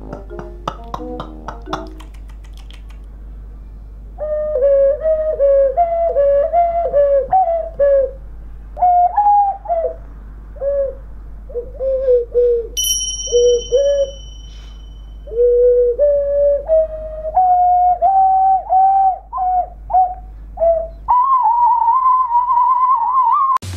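Transverse ocarina played haltingly by someone who says he can't play it: short, wavering notes in a narrow range, broken by pauses, starting about four seconds in and ending on a long, wobbling high note.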